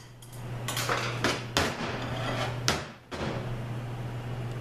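Clutch plates clinking and knocking against each other and against the steel drum as a transmission clutch pack is worked out of its clutch drum: several sharp metallic knocks in the first three seconds, over a steady low hum.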